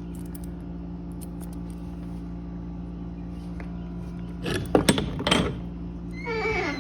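A steady low electrical hum, with a quick cluster of clicks and rattles about four and a half seconds in and a short squeak near the end.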